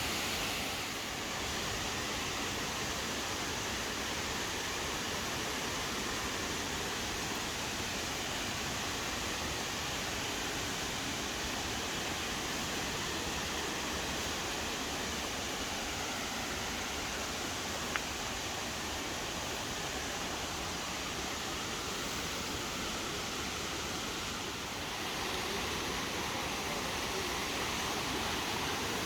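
Waterfall's rushing water, a steady, even roar. One brief click sounds a little past the middle.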